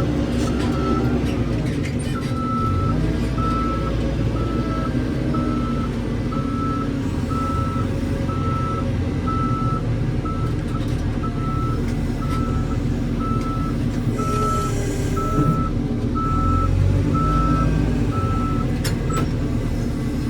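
Reversing alarm beeping steadily, about once a second, over a diesel engine running under load; the beeping stops shortly before the end.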